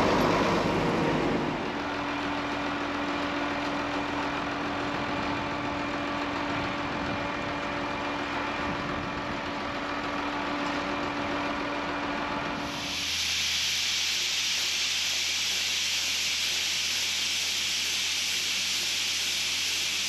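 An old Oliver tractor's engine runs steadily, driving a grain auger. About 13 seconds in, the sound changes suddenly to a steady hiss of shelled corn pouring from the auger spout into a steel grain bin, over a low hum.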